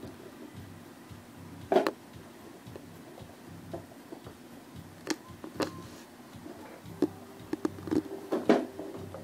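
Sharp knocks and clicks of hard plastic as a toddler handles a plastic ride-on toy: one about two seconds in, a pair around the middle, and several close together near the end.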